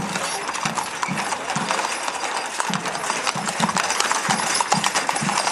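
Horses' hooves clip-clopping on an asphalt street: a team of draft horses pulling a wagon, many overlapping hoof strikes.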